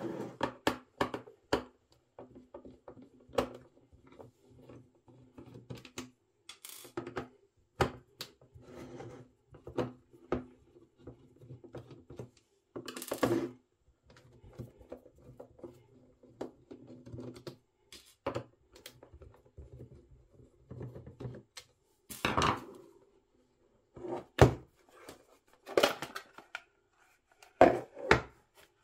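Screwdriver backing screws out of a plastic appliance casing: short runs of low grating as the screws turn, with scattered clicks of the tool and screws. Louder plastic knocks come in the last few seconds as the casing is handled and opened.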